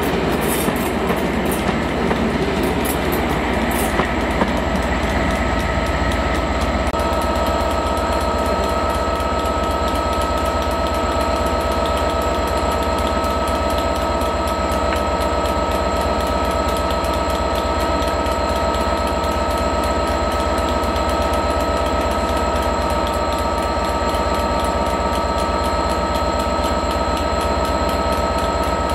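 Train of passenger coaches running past, wheels clattering over rail joints with close-set clicks for the first few seconds. It then settles into a steady train drone with several held whining tones.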